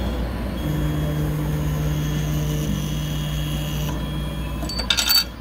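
TagWorks dog-tag engraving machine running with a steady mechanical hum and whine while it handles a freshly laser-engraved tag, ending in a quick clatter of clicks near the end.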